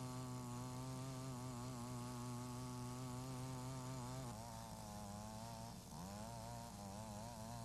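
Faint, steady buzzing hum of a Mantis tiller-cultivator's small two-stroke engine running while its tines dig soil. From about four seconds in the pitch wavers up and down, with a brief dip near six seconds.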